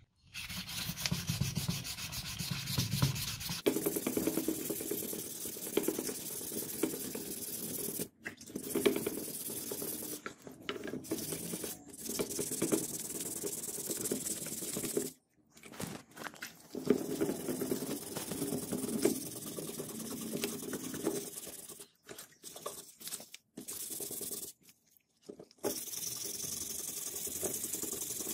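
Sandpaper rubbed back and forth over a wet wooden knife handle in wet sanding, a steady rasping hiss in stretches broken by a few short silences.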